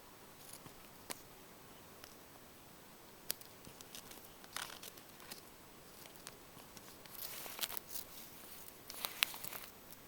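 Faint scattered clicks and short scratchy rustles of tortoises moving about, claws and shell scraping, growing busier with a cluster of louder scrapes and clicks near the end.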